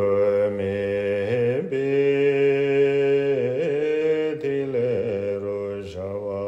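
A man chanting a Tibetan Buddhist prayer alone in slow, long-held tones. His voice steps from one sustained note to the next with a few brief dips in pitch.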